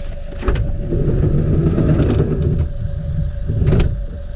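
Camper van's sliding side door pulled open: it rumbles along its runner for about two seconds and ends with a loud clunk near the end as it reaches the stop.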